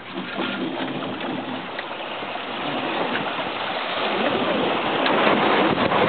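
Water rushing and splashing along the hull of a sailboat under way, a steady hiss that grows louder in the last two seconds.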